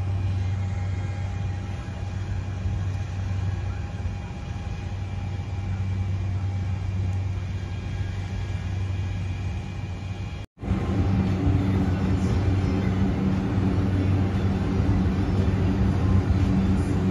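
A steady low machine hum. It drops out abruptly about ten seconds in and comes back a little louder.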